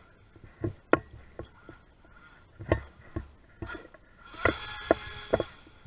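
A run of sharp, irregular knocks, about nine of them. From about four seconds in, the RC jet boat's jet drive spins up briefly: a motor whine over rushing water, lasting a second or so.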